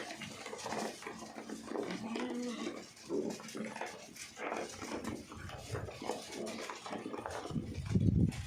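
Goats bleating in short calls among scattered knocks and shuffling, with a louder low call near the end.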